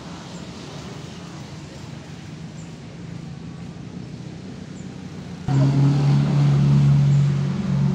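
Low, steady background traffic hum. About five and a half seconds in, a much louder, steady motor-vehicle engine drone starts suddenly and keeps an even pitch.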